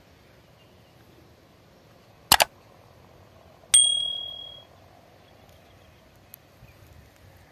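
Subscribe-button animation sound effect: a sharp double click about two seconds in, then a bright bell ding that rings out for about a second.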